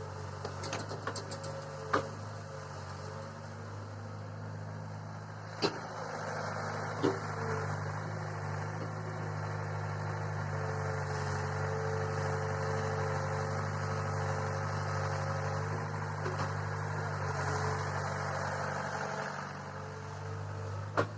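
A vehicle engine running steadily, with a few sharp clanks, one about two seconds in, two more around six and seven seconds, and one near the end.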